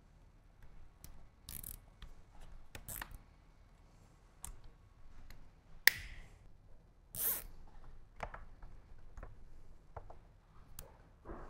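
Wires of a motorcycle fairing's wiring harness being handled and bundled with plastic cable ties: scattered light clicks and rustles, a sharp click about six seconds in and a short rasp a second later.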